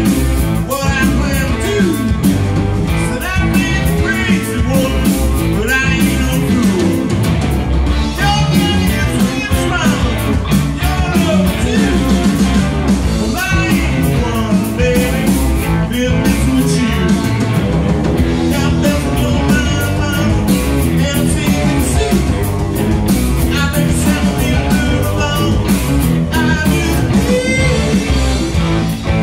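Live rock band playing: a man singing lead over electric guitars and drums.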